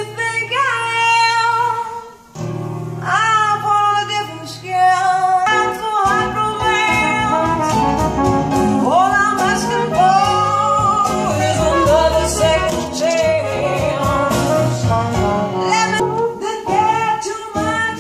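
A song with a singing voice and instruments played through Linn Katan bookshelf speakers driven by a Goldmund Mimesis SR amplifier. It is picked up in the room by a Samsung phone's built-in microphone.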